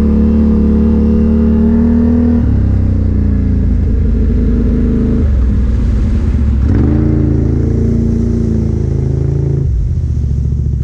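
Off-road vehicle engine running while riding a trail, its note rising and falling with the throttle: it drops about two seconds in, dips and climbs again around six seconds, and dips and climbs once more near the end.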